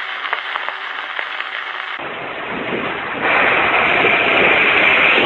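Steady rushing and rumbling noise of riding in a moving vehicle, louder from about three seconds in; for the first two seconds, under the intro logo, a short sound with a few light clicks.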